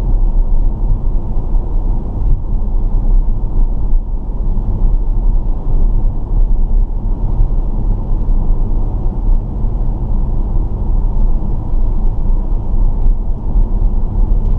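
Car driving at steady speed, heard from inside the cabin: an even, low rumble of road and engine noise.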